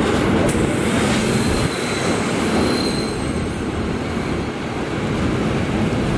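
Passenger train rolling through a station, heard from an open coach window: a steady rumble of wheels on the rails with some rushing noise, and a brief thin high squeal near the middle.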